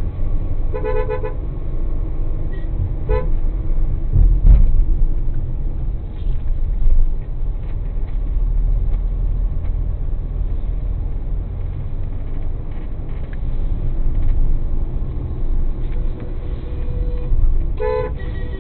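Car horn honking briefly three times: about a second in, again around three seconds in, and once near the end. A steady low rumble of a car driving underneath, as heard from a dash cam inside the car.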